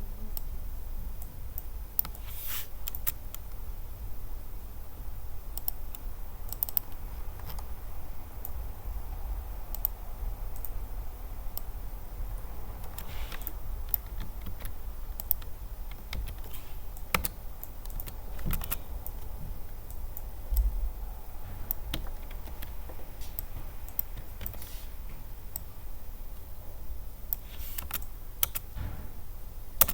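Typing on a computer keyboard: irregular key clicks, with a steady low hum underneath.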